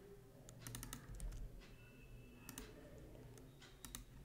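Computer keyboard being typed on: a few scattered keystrokes coming in small clusters, faint.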